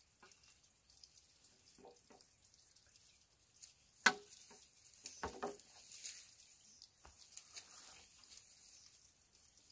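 Scattered sharp knocks and clicks with rustling between them, beginning about four seconds in after a nearly quiet start.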